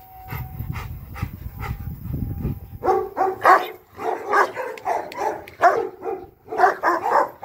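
Large black dog barking in quick runs of barks from about three seconds in. This is guard barking at an approaching man. Before that there is only a low rumble.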